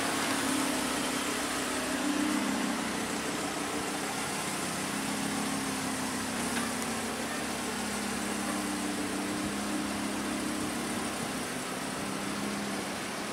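Lamborghini Huracán LP 610-4's V10 engine idling steadily, with an even hiss over it.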